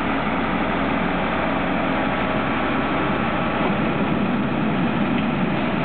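Slurry seal machine's heavy engine running steadily, a continuous drone with no change in pitch.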